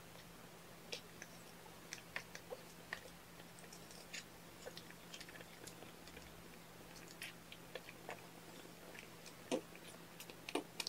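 Newborn kittens suckling at their mother: faint, wet smacking and clicking at irregular intervals, a couple of louder ones near the end, over a steady low hum.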